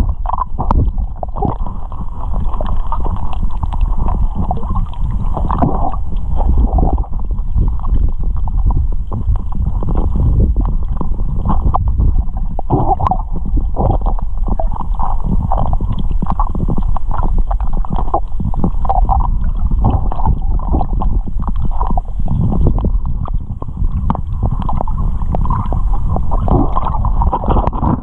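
Muffled underwater rumble of water surge and movement picked up by a submerged camera, with many irregular soft knocks and gurgles.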